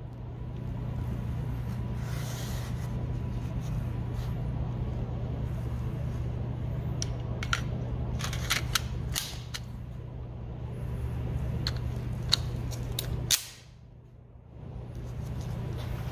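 Sharp metal clicks and clacks from a Luger P08 pistol being handled, as its magazine is slid into the grip and seated about halfway through. Under them runs a steady low hum that drops out briefly near the end.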